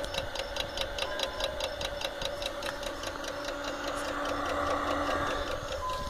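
Dometic RCB 42 P thermoelectric (Peltier) cooler running with its warning signal on: a steady fan hum under a fast, even ticking of several clicks a second.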